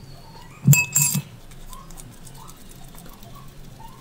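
A metal spoon clinking against a glass mixing bowl about three times in quick succession, about a second in, while scooping out sticky dough.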